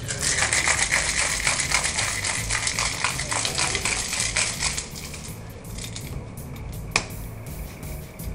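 Ice rattling fast and hard inside a Boston shaker (steel tin with a mixing glass) shaken vigorously for about five seconds, then stopping. A single sharp knock follows about two seconds later.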